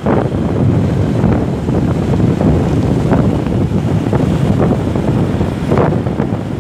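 Wind buffeting the microphone of a camera on a moving motorcycle: a loud, steady low rumble with irregular gusts.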